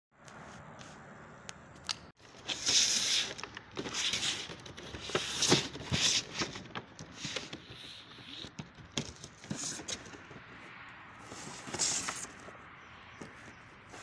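Cardboard toy box being handled and slid on a table: irregular scraping and rustling with small knocks.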